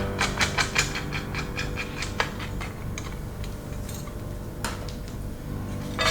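A quick run of small sharp clicks and taps, about six a second over the first two seconds, then a few scattered clicks, from mechanical keyboard parts being handled and fitted together. Soft background music plays underneath.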